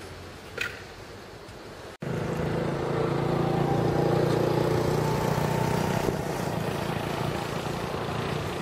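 Quiet outdoor ambience, then after a cut about two seconds in, a motor vehicle engine running steadily and louder.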